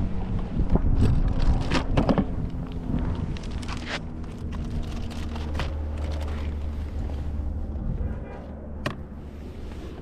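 Wind buffeting the microphone, with scattered knocks and clicks of gear being handled on a plastic fishing kayak. A steady low hum runs from about three to eight seconds in.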